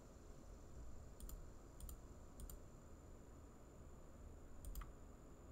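Faint computer mouse clicks, four in all and spread unevenly, each a quick press-and-release, over a low steady hum.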